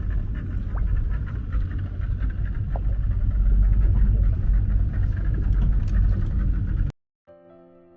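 Sightseeing boat's engine running with wind buffeting the microphone: a steady, loud low rumble that cuts off suddenly about seven seconds in. Soft music with held notes starts just after.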